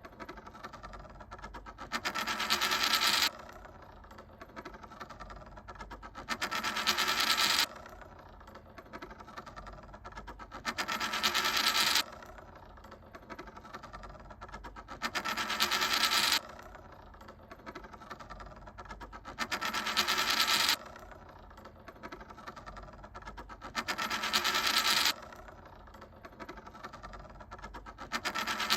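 Japanese 10-yen coin spinning, its rattle building to a loud rapid clatter that stops suddenly, over and over about every four and a half seconds.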